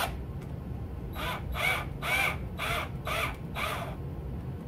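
Hand drill blipped about six times in quick succession, each a short whine that rises and falls in pitch as the bit works into soft cast resin to open up a hole for an LED.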